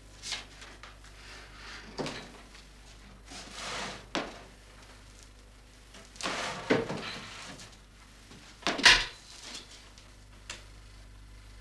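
Drawers and cupboard doors being opened, rummaged through and shut during a hurried search of furniture: a string of separate knocks, scrapes and rustles, loudest about nine seconds in.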